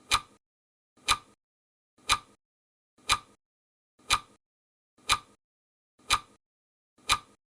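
Clock ticking sound effect: one sharp tick each second, eight in all, with silence between.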